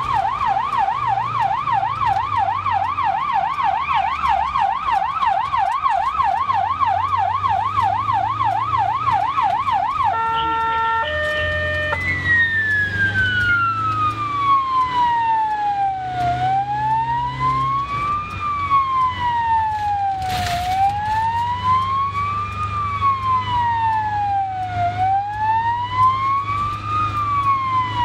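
Hungarian ambulance siren heard from inside the cab. It sounds a fast warbling yelp for about ten seconds, briefly switches to a stepped hi-lo tone, then settles into a slow wail rising and falling about every four seconds. The vehicle's engine and road hum run low underneath, with a single sharp knock about twenty seconds in.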